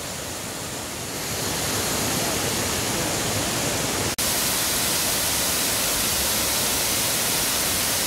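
Steady rush of a waterfall pouring into a pool. It grows louder about a second and a half in, breaks off for an instant just after the middle, then carries on louder.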